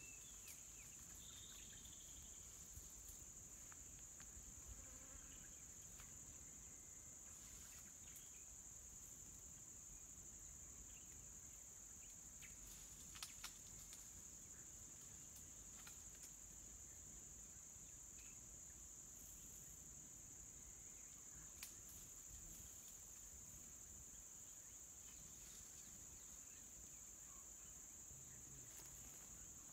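Faint, steady high-pitched drone of insects in the bush, unbroken throughout, with a few soft clicks, two close together about halfway through.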